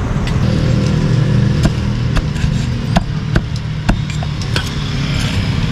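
Cleaver chopping grilled pork on a board, a series of sharp knocks a little under two a second, over an engine running steadily.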